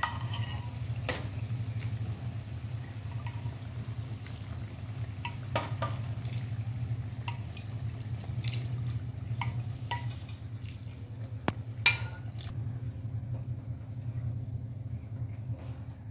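Boiled black-lentil dal and amchur water poured into a frying masala in a steel kadhai, then stirred with a wooden spatula that scrapes and knocks against the pan several times. A steady low hum runs underneath.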